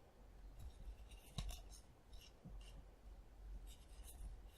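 Faint rustling and sliding of trading cards being handled and flipped through, in two short spells with a soft click about one and a half seconds in.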